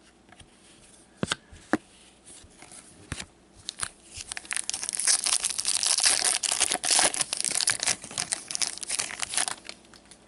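A few sharp clicks, then from about four seconds in a foil hockey card pack wrapper is torn open and crinkled by hand for several seconds.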